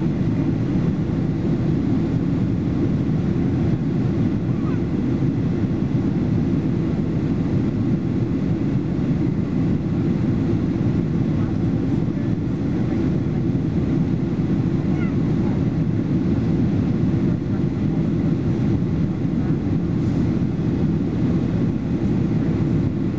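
Steady low cabin roar inside a Boeing 767-322ER airliner in flight, engine and airflow noise heard from a window seat.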